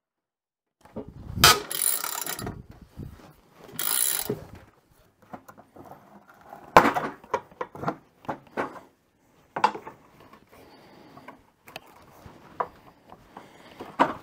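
Socket ratchet clicking in two bursts as the fasteners holding the steel ski runner are backed off, followed by scattered sharp metal clicks and knocks as the runner is worked off the ski.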